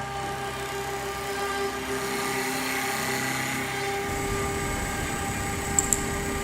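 Dual-spindle CNC woodworking lathe running, its motors giving a steady whine while the cutters turn two table legs. About four seconds in, a deeper rumbling noise and a high steady tone join in, and two sharp clicks come near the end.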